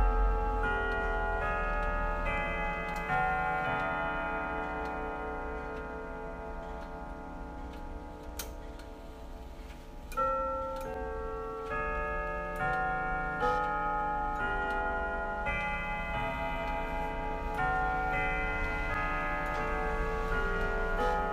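Hermle grandfather clock playing a chime melody: ringing bell-like notes struck one after another and left to sound over each other, with the clock ticking. The notes die down about eight seconds in, and a new phrase starts about two seconds later.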